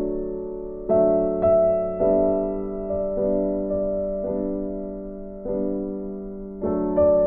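Background music: slow, gentle piano chords, each struck and left to ring and fade, a new chord every second or so.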